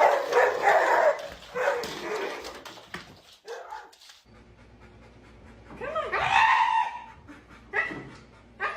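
A dog making drawn-out, wavering vocal sounds for about two seconds. After a short quiet spell comes another pitched, wavering animal call about six seconds in, and a brief one near the end.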